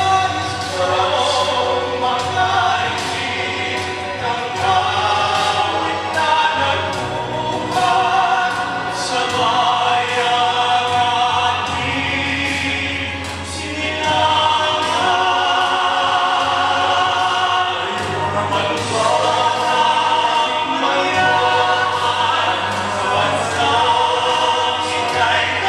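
Male pop-tenor vocal trio singing in harmony into handheld microphones.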